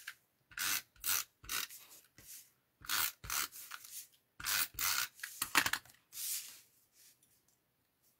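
Short rubbing strokes on card stock, about a dozen in quick runs of two to four, ending about two-thirds of the way through.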